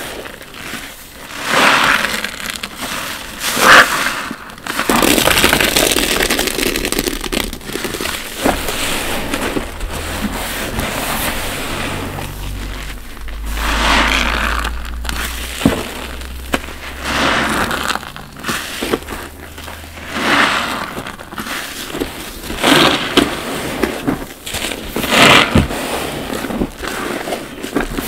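Soap-soaked bath sponges squeezed and scrubbed by rubber-gloved hands in sudsy water: wet squelching and crackling foam in a series of uneven squeezes, some louder than others.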